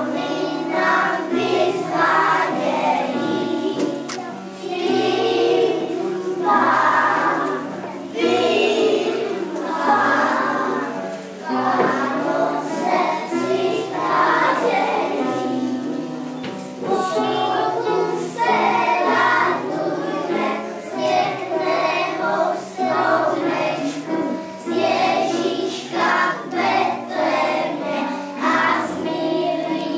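A group of young children singing a song together over an instrumental accompaniment whose low notes step along steadily.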